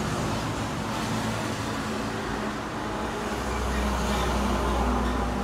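Steady low rumble and hiss of background noise, the rumble growing stronger about three and a half seconds in.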